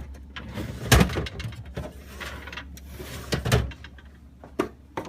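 Plastic deli drawer of a refrigerator being slid and knocked. There are two loud knocks, about a second in and again around three and a half seconds, with a scraping slide between them and a couple of lighter clicks near the end.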